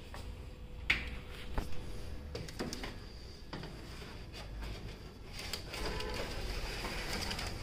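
A metal baking tray being slid into an electric oven's rack rails. A few sharp metal clicks and knocks come first, then a longer scraping slide near the end.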